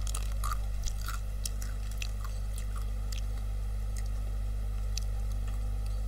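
Crunchy chewing close to a headset microphone: scattered crisp crunches and clicks, thinning out after the first couple of seconds, over a steady low electrical hum.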